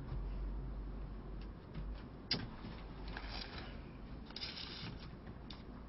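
Quiet handling noises as a takeout food container is set aside and a person sits back down: a sharp click about two seconds in and a couple of brief rustles a little later, over a low steady hum.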